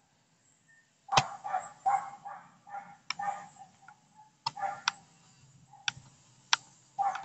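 A quick run of about six short barks starting about a second in, then several sharp clicks and a couple more barks.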